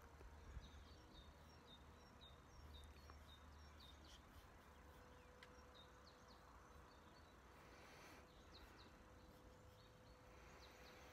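Near silence with faint outdoor ambience and distant small-bird chirps: a run of short high chirps in the first few seconds, and a few more near the end.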